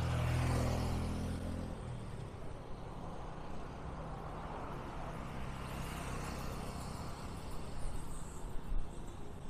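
A motorcycle passing close by, its engine running steadily for about the first two seconds. Then a steady hiss of traffic and road noise.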